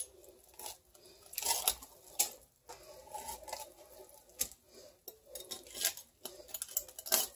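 Knife cutting and working into a raw whole turkey by hand: scattered short rustles and clicks at irregular times, a little louder about a second and a half in and near the end.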